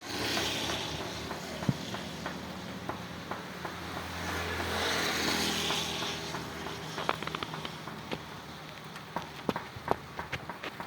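Rain falling, a steady hiss that swells and fades around the middle. In the second half, many separate drops tick and plink close by.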